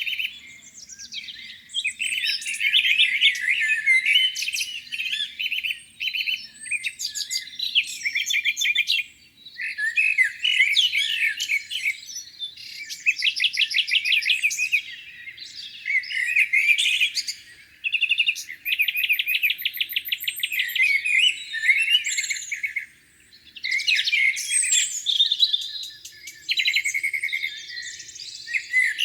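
Several songbirds singing, with overlapping phrases of chirps and fast trills that come and go every few seconds, short pauses between them.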